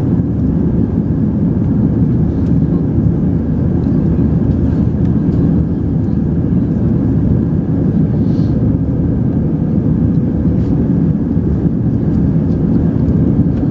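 Steady roar of an airliner's engines and rushing air, heard from inside the passenger cabin during the climb after takeoff.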